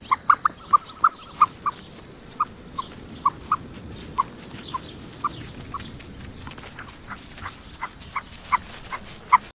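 A small animal's short, high squeaking calls, repeated irregularly about two to three times a second over a steady background hiss.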